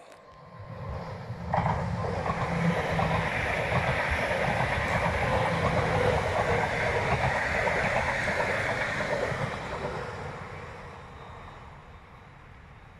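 Two coupled electric multiple-unit passenger trains passing close by: a steady rush of wheels on rail that comes up sharply about a second and a half in, holds, and fades away over the last few seconds as the trains recede.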